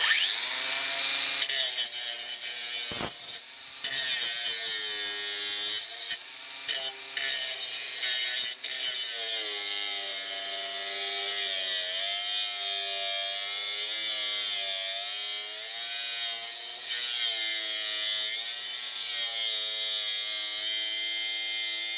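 Bosch GWS 180-Li cordless angle grinder switched on and spinning up, then working a piece with a loud, hissy whine. Its motor pitch wavers as the disc is pressed into the work, with a few brief breaks in the first several seconds.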